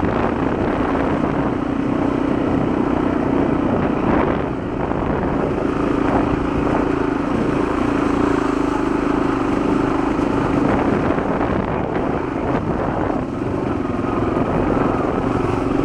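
Honda XL250's single-cylinder four-stroke engine running steadily as the motorcycle is ridden along a trail, easing off briefly about four seconds in and again near thirteen seconds.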